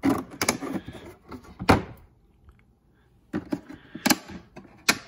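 Hard plastic carrying case being handled: a hand moves the hinged adapter panel inside it, giving scattered plastic clicks and knocks. The sharpest knock comes a little under two seconds in, followed by a brief quiet pause and more clicks.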